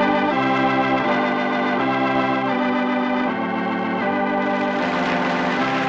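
Organ music: slow, sustained chords, each held for about a second before moving to the next, as a closing musical bridge in a radio drama.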